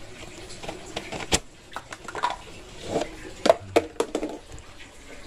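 Handling noise while an office chair is being washed: a few sharp knocks, the first about a second in and three close together in the second half, with short scrubbing or squeaking sounds between them.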